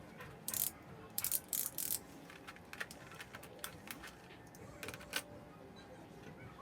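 Hands handling plastic model kit parts and packaging: a few short rustles, then scattered light plastic clicks and taps.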